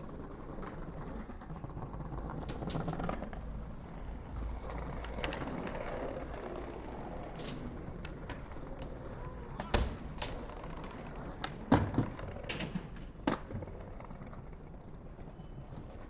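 Skateboard wheels rolling steadily over pavement, with a run of four sharp clacks of the board on the ground in the second half.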